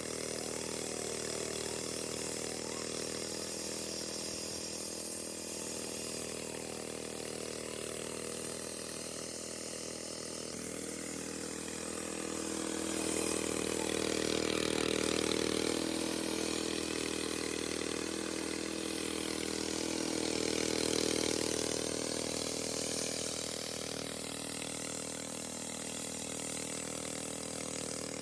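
Engine-driven concrete-cutting machine running steadily. It grows louder for a few seconds in the middle and again about three quarters of the way through, as if taking more load.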